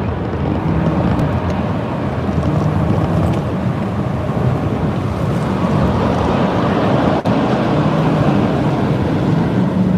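Loud, steady rushing of wind and road noise in a moving car, with a low hum from the engine and tyres. It dips briefly about seven seconds in.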